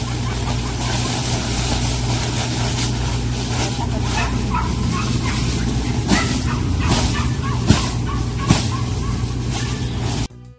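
Well-dried red chili peppers rattling and crackling crisply as they are handled, a dry, clear rattle that shows the peppers are fully dried. A steady low machine hum runs underneath, and the sound cuts off abruptly just before the end.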